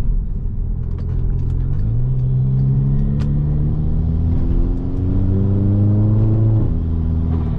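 VW Jetta 2.0 TSI turbocharged four-cylinder with a straight-through exhaust and downpipe, accelerating hard. Its note climbs in pitch for several seconds, steps down once midway and climbs again, then drops off suddenly near the end as the throttle is lifted.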